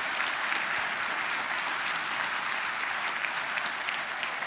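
Conference audience applauding steadily after a keynote talk ends: a dense, even patter of many hands clapping.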